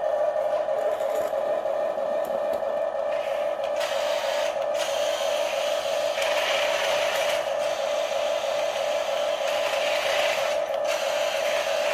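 Small electric motors and gearboxes of a toy radio-controlled construction vehicle whirring with a steady high whine. From about three seconds in, a rushing hiss joins it, breaking off briefly a few times.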